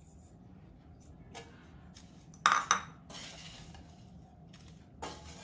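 Metal utensils clinking against a cooking pan as sugar is tipped into the mix: a faint tap, then two sharp clinks just after halfway, a faint rustle, and another clink near the end.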